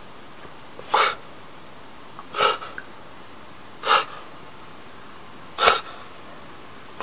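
A pet's repeated sneezes: four short, sharp bursts about a second and a half apart. The owner wonders whether this is reverse sneezing.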